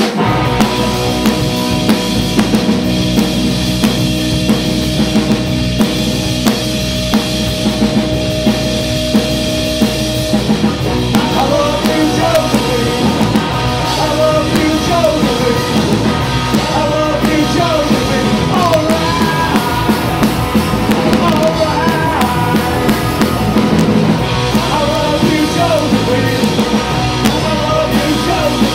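Live rock band playing electric guitar, bass guitar and drum kit through an amplified stage setup. The vocals come in about eleven seconds in.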